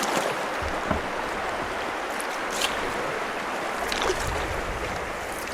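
Steady rush of water from river rapids, with three short sharper sounds about a second and a half apart.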